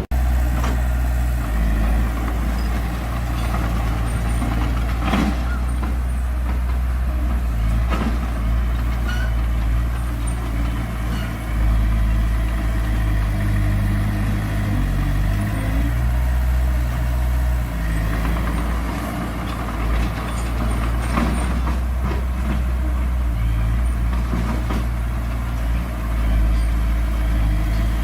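Heavy diesel engine of earth-moving machinery running steadily, its pitch shifting now and then, with a few sharp metal clanks.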